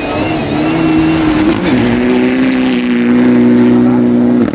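Mitsubishi Lancer Evolution rally car's turbocharged four-cylinder engine at full throttle, its pitch climbing, dropping sharply with an upshift about a second and a half in, then held high as the car accelerates away on gravel.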